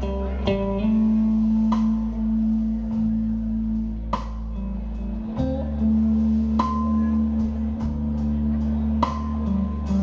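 Live blues-rock band playing: a Stratocaster-style electric guitar holds long sustained notes over bass and a drum kit, with sharp drum hits every second or two.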